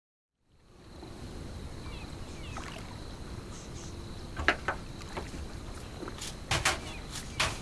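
Ambience of a boat moored at a dock: a low steady rumble of water and breeze with a faint high whine, fading in about half a second in, then several sharp knocks and clunks on the boat from about halfway through, the loudest near the end.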